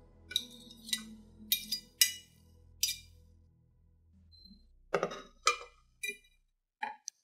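A metal utensil clinking against a ceramic plate as diced ham is scraped off into a saucepan: five sharp clinks over the first three seconds. Near the end come a few duller knocks of kitchenware being set down.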